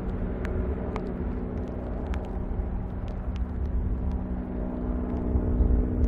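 Helicopter in flight, a steady engine drone, with strong wind buffeting the microphone in a low rumble that swells near the end. Faint scattered ticks run through it.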